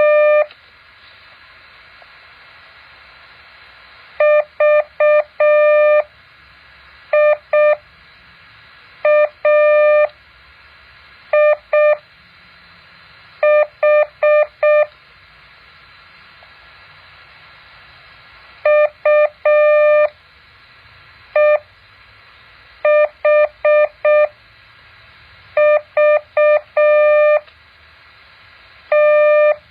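Morse code practice tone: a single steady beep keyed into dots and dashes, sent slowly as separate characters with pauses of a second or two between them, over a faint steady hiss.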